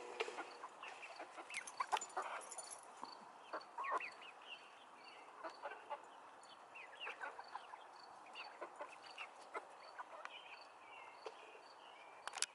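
A small flock of chickens clucking softly and calling in short scattered notes while foraging and pecking. A faint high chirp repeats at an even pace, about every two-thirds of a second.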